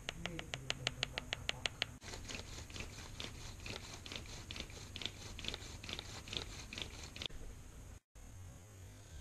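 Bow drill turning a bamboo tube bit against soapstone: a rhythmic scraping with a short click on each stroke, about five a second, sharpest in the first two seconds and stopping about seven seconds in.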